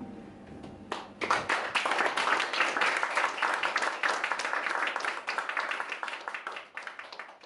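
A small audience applauding. The clapping starts about a second in, as the last chord of the clarinet, guitar and piano dies away, and tails off near the end.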